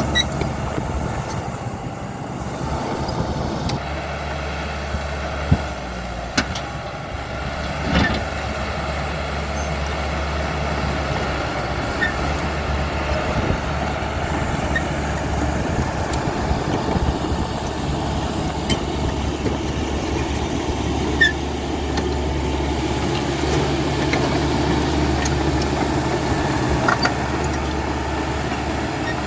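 CAT D5K XL crawler bulldozer at work: its diesel engine runs steadily, with scattered short clicks and knocks over it.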